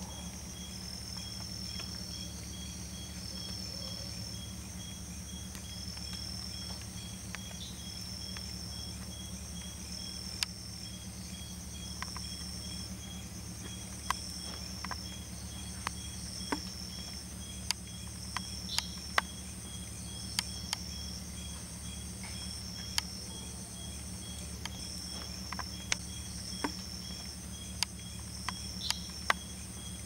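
Night chorus of crickets and other insects: several steady high trills and evenly pulsed chirps overlap over a low steady hum. Scattered sharp clicks come more often in the second half.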